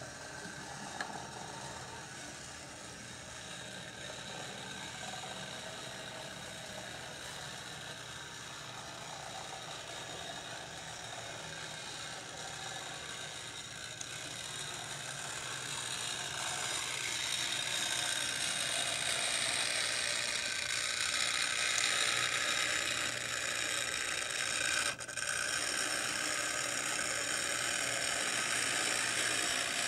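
Samhongsa-built HO brass model of a Canadian Pacific 4-4-4 F-1a Jubilee steam locomotive running along the track: a steady whir of its electric motor and gears, with a light mechanical rattle. It grows louder a little past halfway as the locomotive comes close, then dips sharply for a moment near the end.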